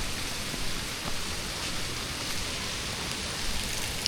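Waterfall pouring onto rocks, a steady rushing hiss.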